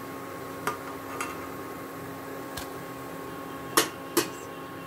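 Snacks deep-frying in oil in a pan over a steady hum, with a few light clinks of a utensil against cookware; the two sharpest clinks come close together near the end.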